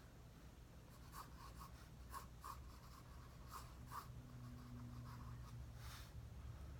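Faint scratching of a drawing tool on paper: a dozen or so short strokes, some in quick runs, over a low steady hum.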